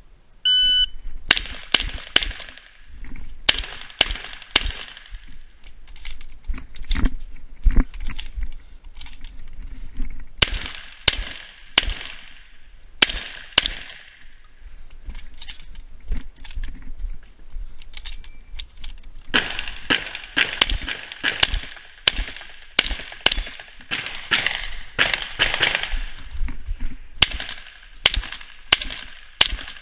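A shot timer beeps once to start. Then a shotgun fires through a stage: dozens of sharp shots in fast strings, broken by short pauses for reloading.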